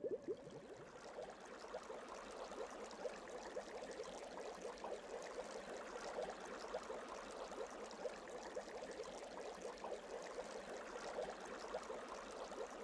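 Bubbling water sound effect: a steady, fizzing stream of many tiny pops and bubbles.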